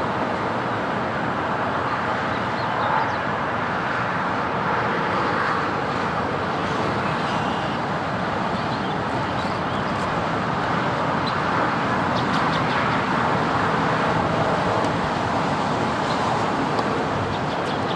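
Steady, even background noise with no distinct events, and a few faint short ticks about two-thirds of the way through.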